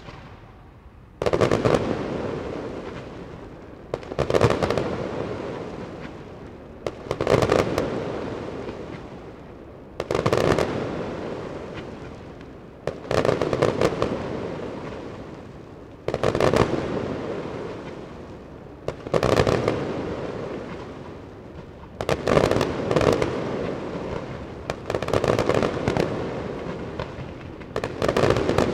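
Aerial fireworks display: volleys of sharp bangs about every three seconds, each trailing off over the next couple of seconds. The volleys come closer together near the end.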